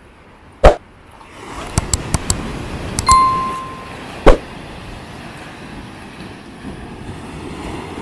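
Subscribe-button animation sound effects: a sharp pop, a quick run of mouse clicks, a short bell ding a little after three seconds, then another pop. Sea wind and surf hiss behind them.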